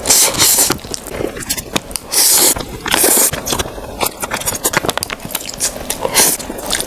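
A person eating Samyang cheese hot chicken stir-fried noodles close to the microphone. There are several loud, hissing slurps of the saucy noodles, with quick, wet chewing clicks in between.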